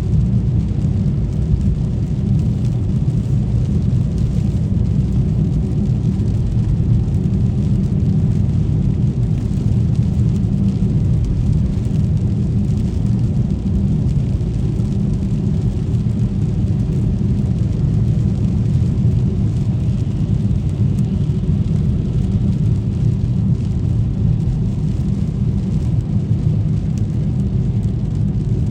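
Car driving on a rain-wet road: a steady low rumble of tyres and engine with no distinct events.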